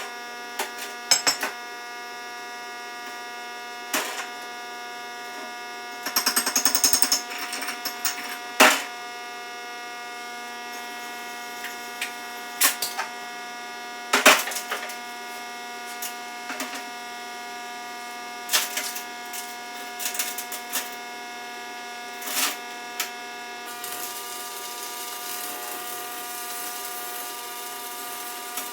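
Welding work on a steel backhoe bucket pin. A steady electrical hum runs throughout, under scattered sharp metal knocks and short bursts of rapid crackle, the loudest about six seconds in.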